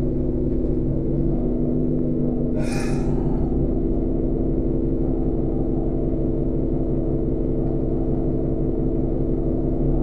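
Alexander Dennis Enviro 400 double-decker bus running steadily under way, heard from the upper deck as a low hum with several steady engine tones. A brief high-pitched sound cuts in about three seconds in.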